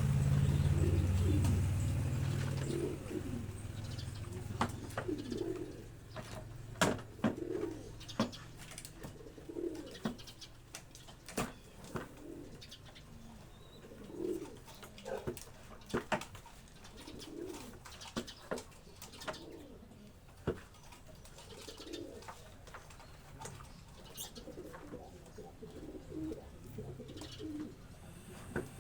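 Pigeons cooing again and again, with scattered sharp clicks and knocks. A low engine hum fades out in the first few seconds.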